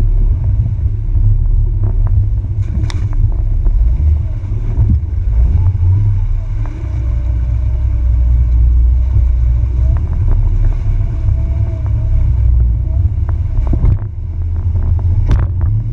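Jeep Wrangler TJ crawling over a rutted mud trail: a heavy, steady rumble of engine and drivetrain, with a few sharp knocks from the body and suspension, one about three seconds in and one near the end.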